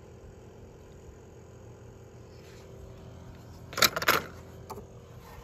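A short clatter of toy cars being handled, two or three quick hits about four seconds in and a lighter click just after, over a faint steady hum.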